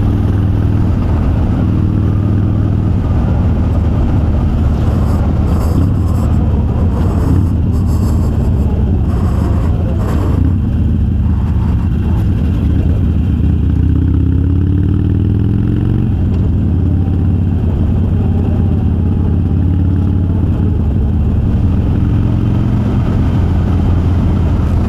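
Harley-Davidson Sportster's air-cooled V-twin running steadily under way through Vance & Hines Twin Slash 3-inch slip-on mufflers fitted with quiet baffles, giving a mellow exhaust note.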